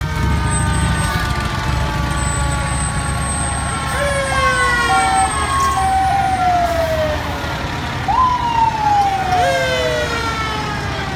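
Fire engine's siren sounded in short bursts, each jumping up sharply in pitch and then falling slowly away, three times. The truck's engine rumbles low underneath.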